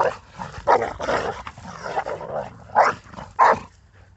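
Two pit bulls wrestling, with a run of rough snarls and barks. Two sharp barks come near the end, the loudest about three seconds in. The female is asserting dominance over the male.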